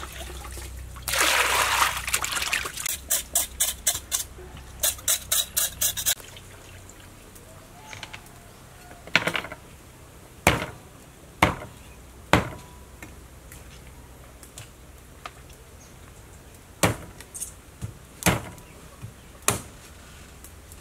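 Water pouring and splashing as a raw pig's leg is washed in a metal basin, with a quick run of rhythmic washing strokes. From about nine seconds in, a meat cleaver chops on a cutting board: single sharp chops about a second apart, with a pause in the middle.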